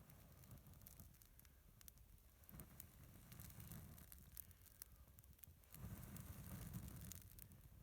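Faint crackling and popping of a small birch-bark campfire, with a low rumble, likely wind on the microphone, that swells about six seconds in.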